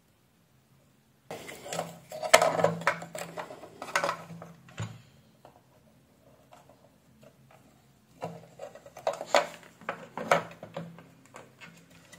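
Clicks and clatter of hands handling a small circuit board, its ribbon cable and wires inside the opened plastic housing of an electronic weighing scale, as the board is swapped and refitted. The sounds come in two irregular spells, one starting about a second in and another about two-thirds of the way through.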